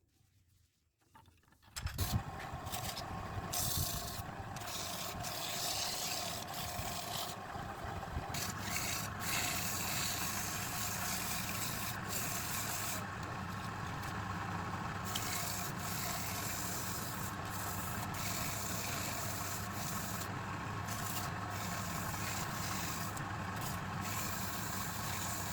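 Wood lathe running, with a tool cutting and scraping against the spinning wood; it starts about two seconds in and the scraping hiss comes and goes as the tool touches and leaves the wood.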